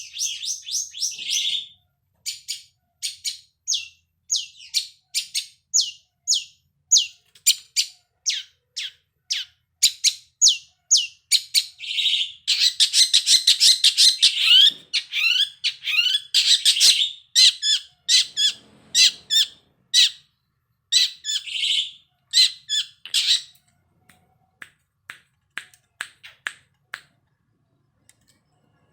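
Long-tailed shrike (cendet) singing: a fast series of sharp, high, downward-slurred notes mixed with stretches of harsh, scratchy chatter, thinning to a few sparse notes near the end.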